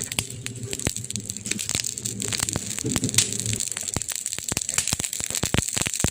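Burning wood crackling: many sharp pops and snaps over a steady hiss, coming thicker and louder in the second half. A low hum under them stops a little past halfway.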